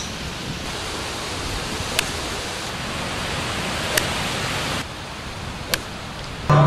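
Steady wind noise on the microphone, broken by three sharp clicks of golf clubs striking balls off the tee, about two seconds apart.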